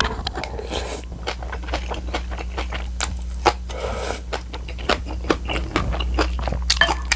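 Close-miked eating: crisp bites and wet chewing of kimchi and tofu, with many sharp crunch-clicks scattered throughout, over a steady low hum.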